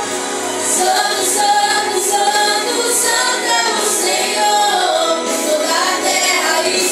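A group of young people singing a worship song together, female voices prominent.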